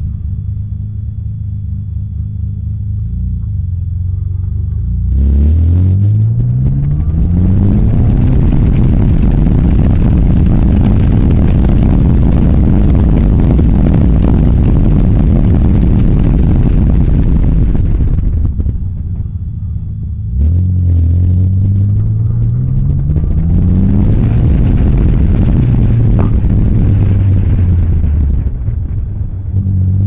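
Nissan Skyline GT-R R33 engine running at low steady revs, then accelerating with rising pitch about five seconds in and again about twenty seconds in. Each pull is followed by a long spell of heavy wind noise on the outside-mounted microphone that covers most of the engine sound.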